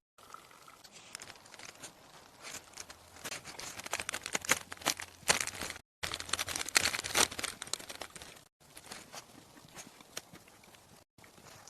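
Irregular crunching and crackling, densest in the middle, broken off abruptly a few times.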